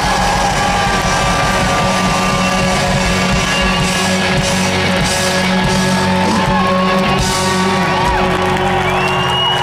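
Rock band playing live and loud through a PA, with guitars, drums and a singing voice, while the crowd shouts and whoops around the microphone.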